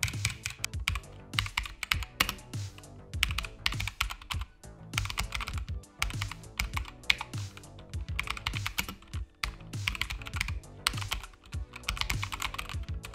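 Keychron K2 V2 mechanical keyboard being typed on fast: a dense, uneven run of key clicks and clacks, shown off as the sound the keyboard makes.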